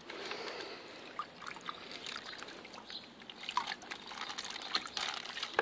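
Water trickling and sloshing gently in a plastic bucket as a plastic fish bag is tipped and emptied into it.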